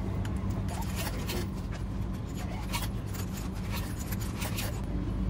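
Coins fed one after another into the coin slot of a ramen vending machine, a run of sharp metallic clicks as they drop through the coin mechanism, from about a second in to near the end, over a steady low hum.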